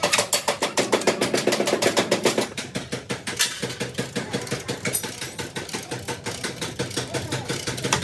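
Rapid, even tapping on car body sheet metal, about eight strikes a second, as a dented panel is worked. The tapping is loudest for the first two and a half seconds, then goes on more softly.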